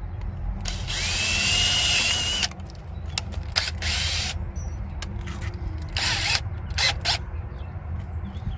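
Power drill run in several short bursts, drilling out the mounting holes in a plastic weatherproof outlet cover. The first and longest burst, about a second in, carries a whine that rises as the motor spins up, then shorter bursts follow.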